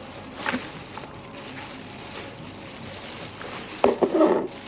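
Lamp parts being handled and set down on a wooden floor: a light knock about half a second in, then a quick cluster of sharp clicks and knocks near the end as a lampshade is put down.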